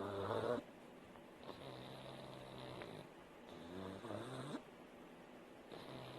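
Pug snoring in its sleep: a low buzzing snore with each breath, about one every one and a half to two seconds, the first the loudest.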